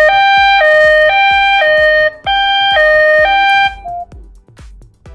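Easyfone senior feature phone sounding its SOS emergency alarm through its loudspeaker once the countdown ends: a loud siren alternating between a higher and a lower tone, in long bursts, cut off about four seconds in when the SOS is aborted.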